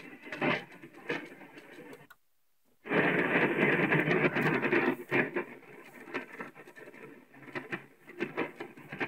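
Sony boombox radio scanning the AM band: static with sharp crackles from weak distant stations. About two seconds in the sound cuts to silence for under a second as the tuner moves on, then a stronger station comes in loudly for about two seconds before falling back to crackling static.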